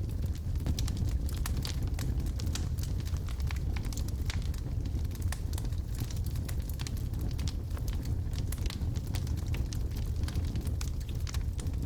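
Wood fire with logs burning in a fireplace: a steady low rumble of the flames with many small, irregular crackles and pops, several a second.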